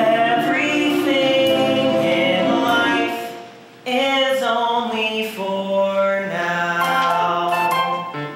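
Music: a group of voices singing together in harmony on held notes. The singing fades about three seconds in, and a new phrase starts a second later.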